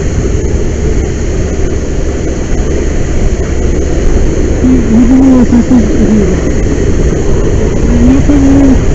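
Loud, steady roar of a fire hose nozzle spraying a wide fog stream, mixed with the roar of a large fire burning on a railroad tank car. It grows louder about four seconds in, and a muffled wavering tone sounds twice in the second half.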